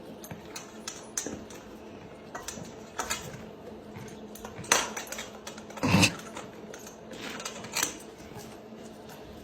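Irregular light clicks, clinks and knocks of small hard objects, a few louder ones in the second half, over a faint steady hum.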